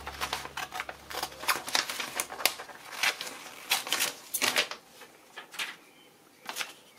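Steel scissors cutting through a sheet of paper in a quick run of crisp snips that thin out and stop about five seconds in.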